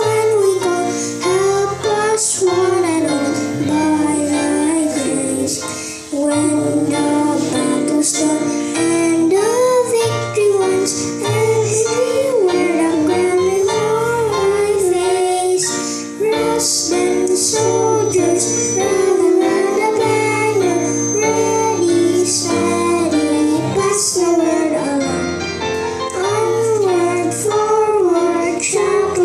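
Children singing a song into microphones over an instrumental accompaniment.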